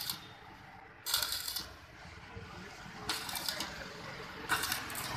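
Electric arc welding on a steel gate frame, in short bursts of crackling and sizzling about half a second long, four times, as the welder strikes the arc for brief tack welds.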